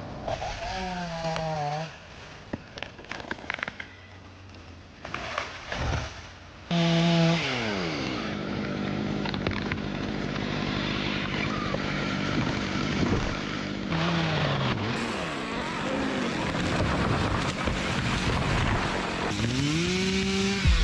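Chainsaw engine revving up and dropping back several times, with steady running at high speed in between as it cuts through a tree. It goes quieter for a few seconds near the start, with a few knocks and clicks.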